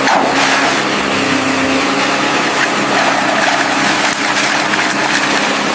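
An engine running steadily at an even pitch, under a loud, even rushing noise.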